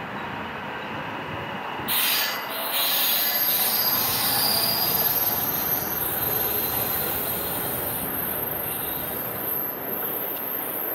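JR West 521 series electric train moving away along the track, with a high-pitched wheel squeal that sets in about two seconds in and holds as it runs toward the curve.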